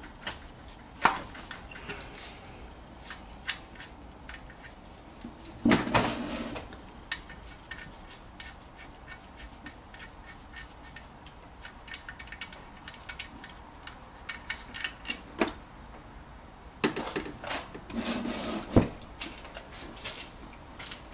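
A spanner and socket clink and knock against the oil drain plug of a 2008 Honda Civic as it is cracked open and loosened, with scattered metallic clicks and a few louder scraping bursts.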